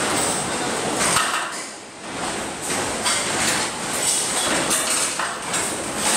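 Irregular metal knocks and clanks as aluminium formwork is fitted, over a steady din of construction-site noise.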